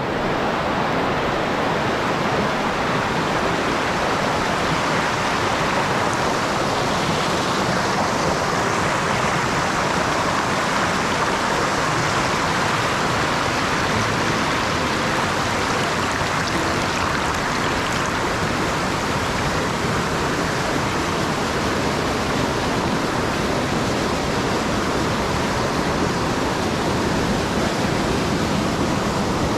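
Steady, loud rush of whitewater as a mountain creek pours down rocky cascades, an even roar with no breaks or changes.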